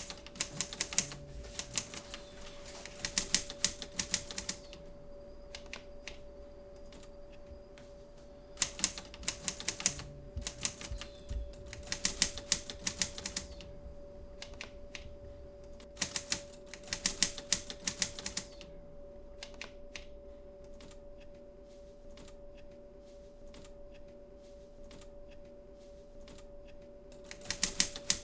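Typewriter keys striking in quick bursts of typing separated by pauses, with a long stretch of only scattered keystrokes in the second half. A steady low hum runs underneath.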